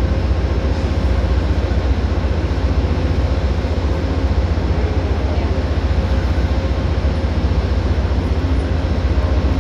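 Amtrak train's diesel locomotive idling while the train stands at the station: a steady low rumble with a faint hum.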